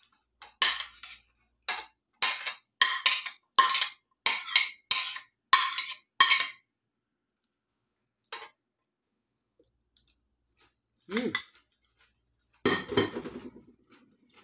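A metal spoon scraping salad off a ceramic plate into a bowl, about nine quick scrapes over six seconds. Two brief clinks and clatters follow near the end.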